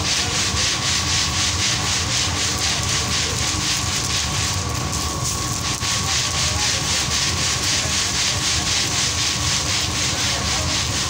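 Black chickpeas being roasted in hot sand in a large iron wok, stirred and scraped with a long-handled stirrer in a fast, even rhythm of about four strokes a second, the sand and grain rasping against the iron.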